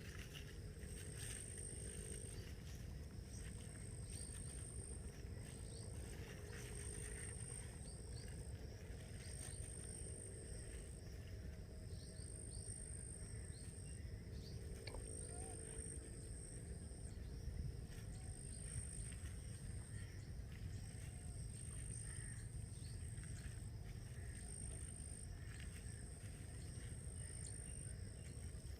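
Outdoor ambience: a steady low rumble under a high-pitched chirp that repeats about once a second, with a few faint ticks.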